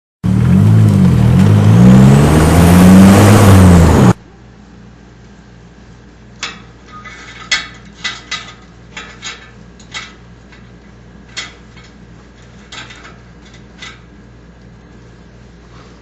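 Car engine revving hard through an exhaust fitted with a clip-on fake turbo whistle, a high whistle riding over the revs as they rise and fall. It cuts off suddenly about four seconds in, leaving a quiet steady hum with scattered sharp clicks.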